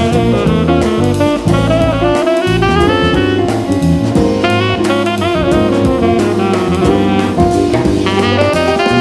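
Instrumental jazz music: a gliding melodic lead over bass and a drum kit.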